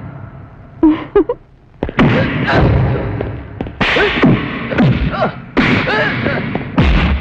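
Film fight sound effects: a string of sharp dubbed punch and kick impacts, with the fighters' short yells and grunts between the blows.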